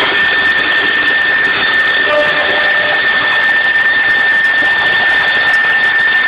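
CNC milling-engraving machine running: a steady high whine from the spindle over a constant hiss.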